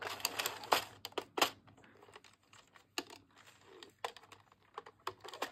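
Addi 22-needle circular knitting machine being cranked by hand, its plastic needles clicking and clattering. The clicks come thick and fast for about the first second and a half, then thin out to scattered single clicks.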